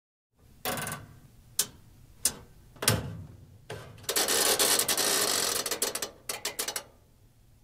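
Handling noise: five separate sharp clicks and knocks, then a rustling scrape of about two seconds and a quick run of small clicks.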